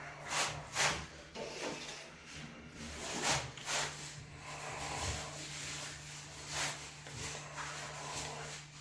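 Scattered knocks and rubbing, with a steady low hum underneath.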